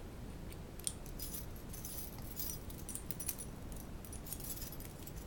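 Stainless steel hinged handcuffs and their key, giving scattered small metallic clicks and jingles as the cuff is worked with the key. The cuff still works although a small part where the key goes in has fallen out.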